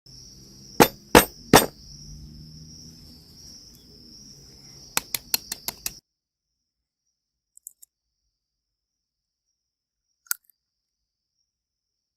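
A series of sharp clicks and clinks: three spaced strokes about a second in, then a quick run of five or six, over a steady high-pitched hum. The sound cuts off abruptly partway through, leaving near silence with one more sharp click later.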